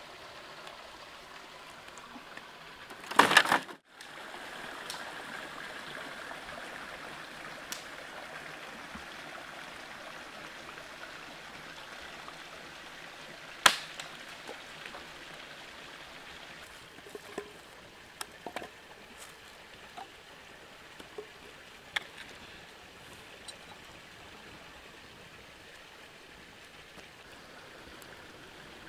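A stream running over rocks, a steady rush of water. About three seconds in there is a brief loud noise, a sharp knock comes near the middle, and a few small clicks follow.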